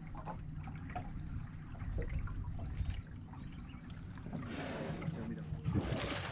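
Water splashing as an animal swimming ahead of the boat breaks away toward the reeds, two splashes about four and a half and six seconds in, over the low steady noise of the boat moving through the channel.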